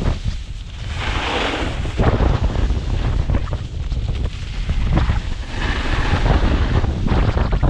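Wind buffeting the microphone: a loud, uneven low rumble with a rushing noise that swells and drops in gusts.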